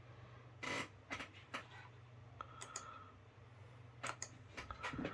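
About ten scattered computer keyboard and mouse clicks and taps, over a steady low hum, with a brief faint squeak about two and a half seconds in.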